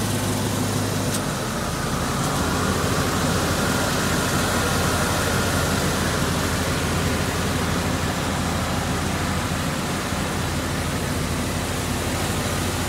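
LS-swapped Vortec V8 engine idling steadily under an open hood, with an even rushing noise over the low engine hum.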